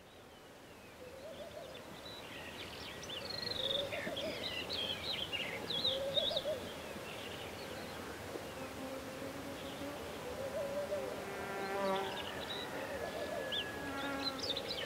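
Birds chirping and singing over low buzzing of flying insects that wavers up and down in pitch, fading in from silence. About three-quarters of the way through, held flute-like music notes begin to come in under it.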